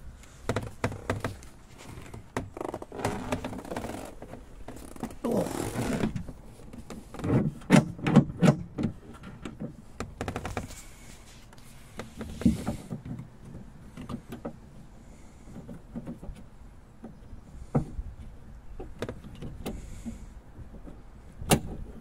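Clicks, clunks and scraping from a Jaguar X-Type's door latch and lock mechanism being worked by hand inside the stripped door, trying to make the stuck latch release. A cluster of loud sharp knocks comes about a third of the way in, with scattered single clicks after.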